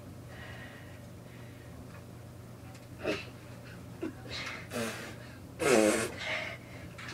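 A person straining to escape a wrestling hold: short gasping breaths and grunts of effort, with a longer voiced grunt about two-thirds of the way through.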